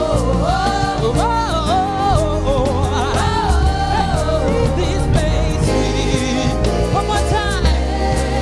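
Gospel worship music: singing over a band with a steady beat and a bass line.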